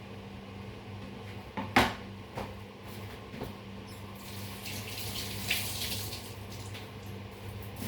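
Kitchen tap running briefly into a sink, with a sharp knock about two seconds in and a few lighter clicks before the water starts. A low steady hum sits underneath throughout.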